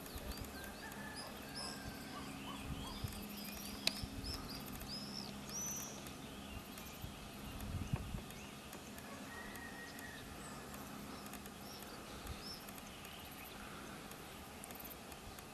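Outdoor field ambience: small birds chirping in the background, a run of short arching chirps in the first several seconds, over a faint steady low hum, with a few soft knocks.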